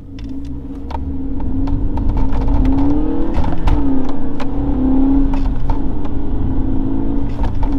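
BMW 1 Series (E87) engine launched hard from a standstill, heard from inside the cabin. It gets louder over the first couple of seconds, then the engine note rises and falls as the car pulls away.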